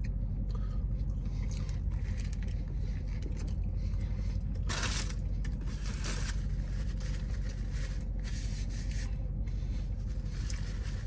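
Steady low hum inside a car, with two bouts of rustling, scraping noise, each a second or two long, about five and eight seconds in.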